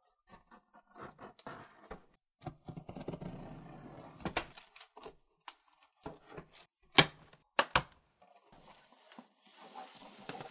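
Box cutter slicing and scraping through packing tape along the top of a cardboard shipping box, with cardboard and crumpled packing paper rustling and a few sharp snaps. Near the end the cardboard flaps are pulled open with a longer rustle.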